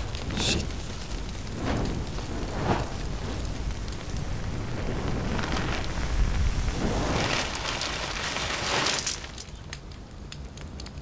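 Nylon tent burning: flames rushing and crackling in repeated swells, dropping to quieter crackling about nine seconds in.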